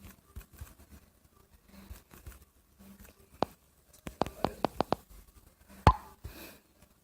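Light handling clicks and taps: a single click, then a quick run of about six, and one louder knock near the end.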